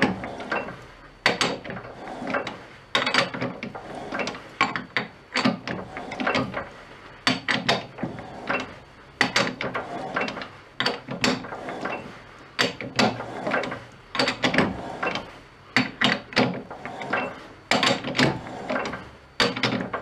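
Metal lathe's chuck and headstock gears turned by hand in short strokes while a new threading die cuts a thread on the workpiece: repeated metallic clicks and clunks in irregular clusters about once a second, with no motor running.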